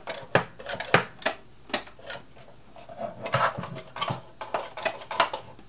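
Irregular plastic clicks and knocks from the switch knob on the end of a Bernina 1000 sewing machine being turned back and forth, checked as a possible cause of the motor failing to run.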